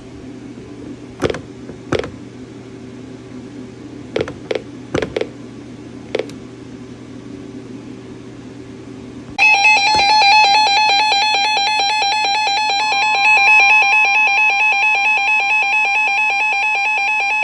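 A weather radio receiver with a low hum and a few sharp clicks, then a loud, buzzy alert tone that starts abruptly about nine seconds in and holds steady, a second higher tone joining a few seconds later. It is the NOAA Weather Radio alert tone that signals a new severe thunderstorm warning.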